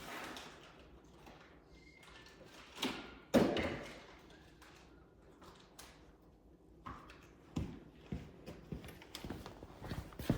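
Scattered knocks and light clicks of small metal hardware and parts being handled during the work, with one sharp knock about three and a half seconds in and a run of small clicks near the end.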